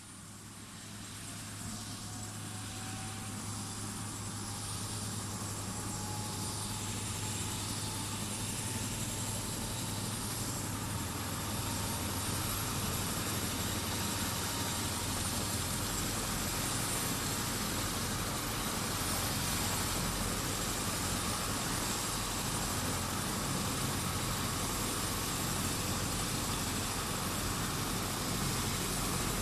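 Helicopter running, growing louder over the first few seconds while a whine climbs in pitch, then holding a steady drone with a hiss on top.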